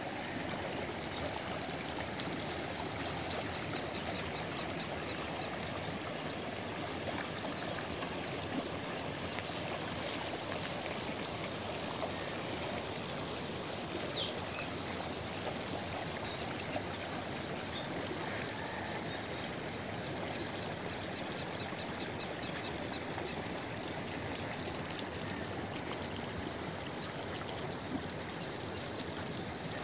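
Steady rushing noise like running water, with a few faint high chirping trills now and then.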